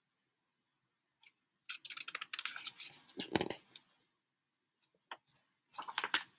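Pages of a hardcover picture book being flipped and handled: paper rustling and flapping, in two spells, the first about two seconds in and a shorter one near the end.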